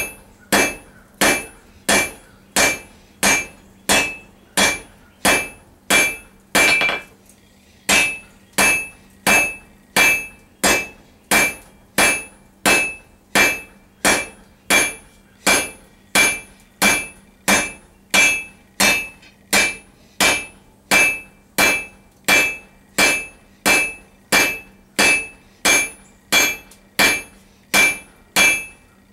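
Hand hammer striking a hot 1 cm round steel bar on an anvil to taper it: steady blows at about three every two seconds, each with a bright metallic ring, and one short pause about seven seconds in.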